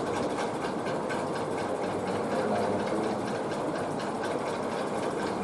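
Steady mechanical whirr, even in level, with no speech over it.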